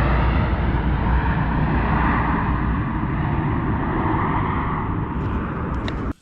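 Wind buffeting the camera microphone: a loud, steady rushing rumble that cuts off suddenly near the end.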